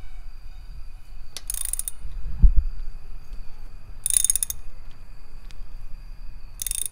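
Hand ratchet clicking in three short runs on its back-swings as a thread-repair tap is turned through the spark plug hole of a Ford 4.6 2V cylinder head, chasing the threads. A dull low thump comes about two and a half seconds in.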